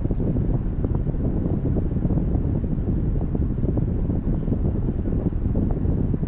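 Steady low rumble of wind and road noise from a car driving, with wind buffeting the microphone.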